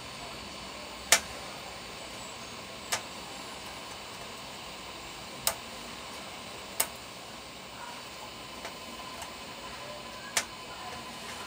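Hot-air rework gun blowing steadily as a hiss with a faint high whine, heating a backlight LED to desolder it. Five sharp clicks stand out over it, the loudest about a second in.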